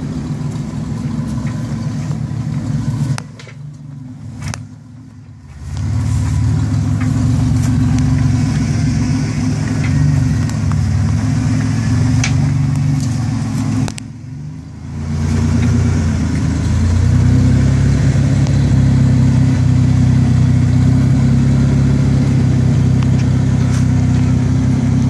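Lifted Ford Explorer's engine running under throttle as it crawls over rutted dirt, easing off twice (about three seconds in and about fourteen seconds in) and then held louder and steady near the end.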